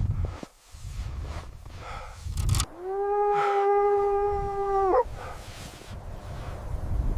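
One long, steady howl-like animal call lasting about two seconds, set between stretches of low rumbling noise, with a brief sharp crackle just before the call.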